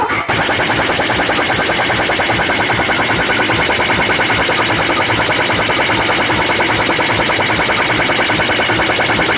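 Loud DJ sound system playing a sound-check track: a dense electronic buzz pulsing fast and evenly, many times a second, holding steady throughout.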